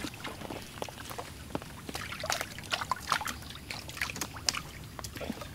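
Water dripping and trickling, with small irregular splashes.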